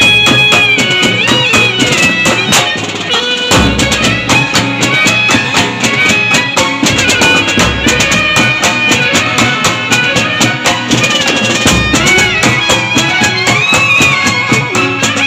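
Live band music: a saxophone and a clarinet play a melody together, with sliding notes, over fast, dense drumming on steel-shelled side drums struck with sticks.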